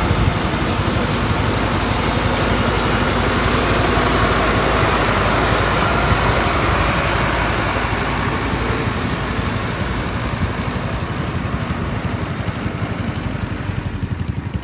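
Rice combine harvester's diesel engine running steadily, a loud mechanical drone that grows gradually quieter over the second half.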